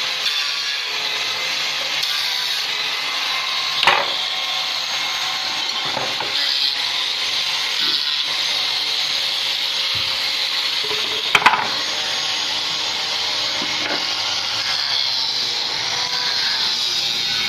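A tool working wood: a steady, high-pitched scraping noise, broken by two sharp knocks, about four seconds in and again about eleven seconds in.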